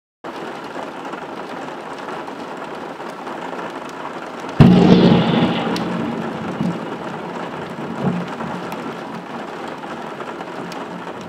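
Steady heavy rain during a thunderstorm, with a close thunderclap about four and a half seconds in: a sudden loud crack that rumbles away over a couple of seconds. A smaller thump follows near the eight-second mark.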